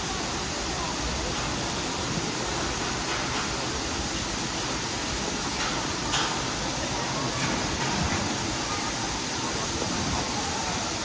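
Steady rush of the Hongjecheon waterfall: water falling in an even, unbroken noise. Faint voices of people sound behind it, with a brief sharper sound about six seconds in.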